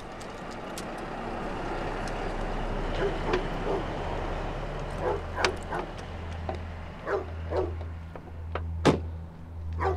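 Dogs barking: a string of short, sharp barks starting about five seconds in, over a low hum that throbs about once a second and a hiss that swells in the first seconds.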